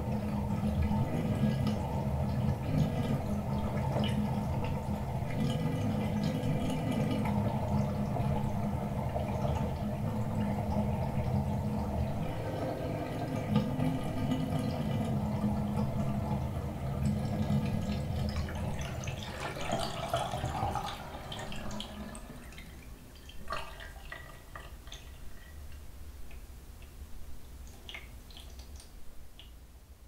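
Fiberglass bathtub draining: water gurgling steadily down the drain, then dying away about two-thirds of the way through as the last of it goes down. Scattered small gurgles and drips follow.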